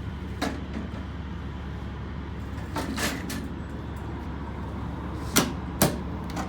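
Hard clunks and clicks from handling an electric typewriter and its plastic carrying case: a light click early, a few knocks around the middle, and two loud sharp knocks near the end, over a steady low hum.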